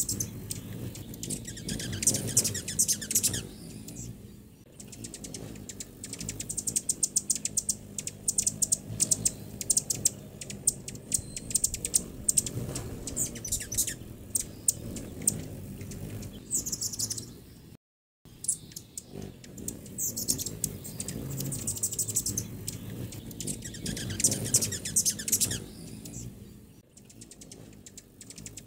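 Small birds chirping: quick runs of high, thin chips and ticks, coming in several stretches, with a brief cut-out about two-thirds of the way through.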